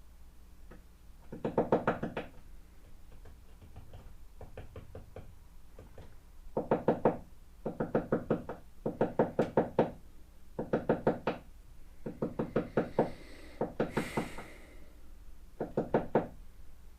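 A woodpecker pecking on a building's wooden outer wall: bursts of rapid knocks, about ten a second, each burst lasting under a second and coming again and again with short pauses between.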